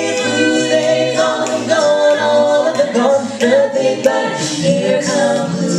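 Mixed six-voice a cappella group, men and women, singing in close harmony without instruments. Stacked chords move over a low sung bass line.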